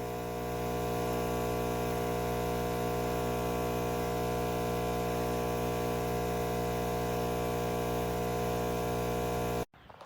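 Nespresso CitiZ espresso machine's pump running during a brew, a steady buzzing hum that cuts off suddenly near the end.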